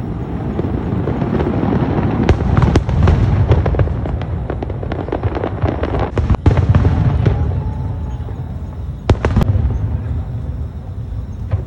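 Aerial fireworks display: shells bursting with deep rolling booms and rapid crackling. The crackles are densest in the middle, and two sharp bangs come about nine seconds in.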